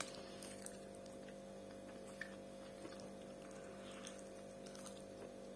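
Steady low electrical hum, with a few faint scattered clicks.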